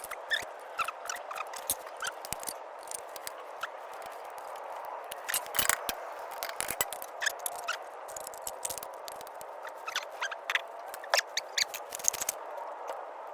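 Irregular light metallic clicks, clinks and scrapes of hand tools and brake parts being handled, with a cluster of louder knocks about halfway through and again near the end, over a steady background hum.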